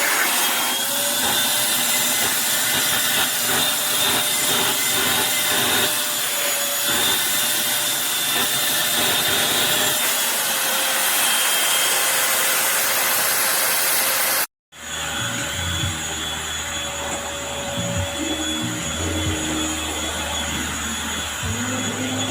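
Eureka corded stick vacuum cleaner running steadily with a faint high motor whine. About fourteen and a half seconds in the sound cuts out for an instant and comes back with a lower hum added underneath.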